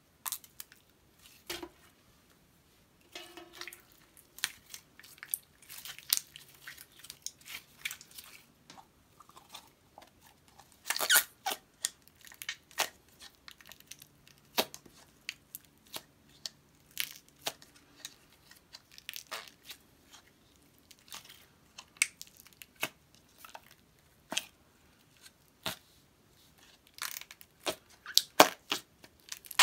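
Glitter slime being squeezed and kneaded by hand, then pressed and poked down into its plastic tub, giving irregular sticky pops and crackles with short quiet gaps between them.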